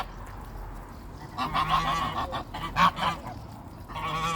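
A group of geese honking at being fed oats: a quick run of honks from about a second and a half in, then another run near the end.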